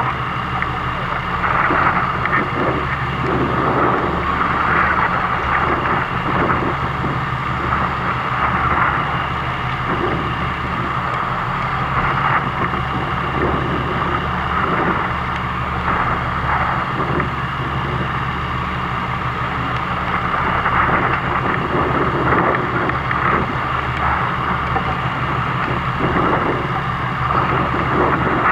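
A fishing boat's engine running at a steady hum, under the rushing noise of wind and water around the boat.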